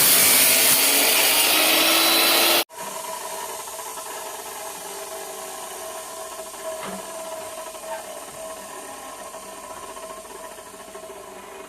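14-inch chop saw cutting metal pipe: a loud, hissing grind that stops abruptly about two and a half seconds in. It gives way to a much quieter, steady machine hum with a faint whine.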